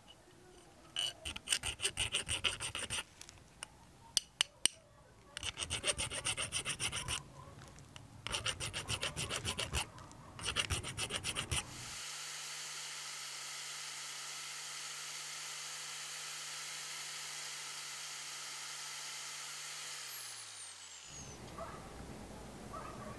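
A hand file rasping across a cast metal spoon-lure blank in quick runs of strokes. Then a small electric sanding disc spins steadily with the blank held against it, its motor winding down near the end.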